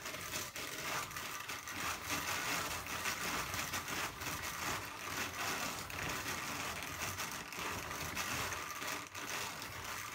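Hand-cranked drum carder turning steadily, its toothed drums drawing wool through as it is carded. The result is a continuous, even mechanical noise with fine ticking.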